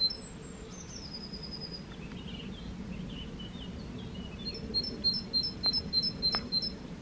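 Songbirds singing: a high two-note phrase repeated rapidly, heard twice, with a falling trill and scattered short calls in between, over a steady low wind rush.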